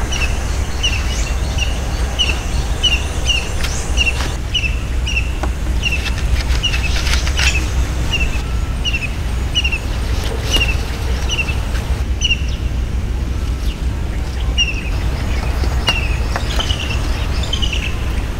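A bird calling over and over, a short falling chirp about twice a second, over a steady low rumble. A few sharp knocks come from stones being set into a stone-and-mud wall.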